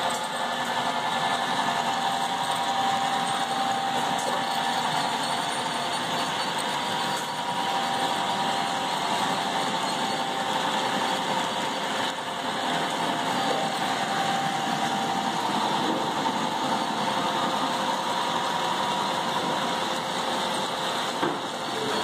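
Model freight train rolling past on the layout's track: a steady whir of small wheels on rails.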